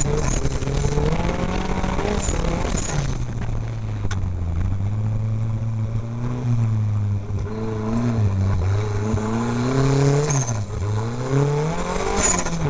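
Offroad race vehicle's engine heard from inside the cockpit while racing, its pitch rising and falling with the throttle. The first three seconds are rough and rattly; around ten seconds in the revs dip sharply and climb again.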